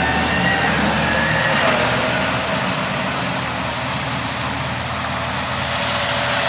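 Combine harvester running steadily: dense machine noise with a faint whine over it.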